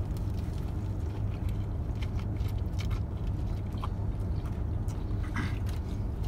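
Eating sounds: chewing and scattered small clicks of food and wrappers, over a steady low hum inside a car.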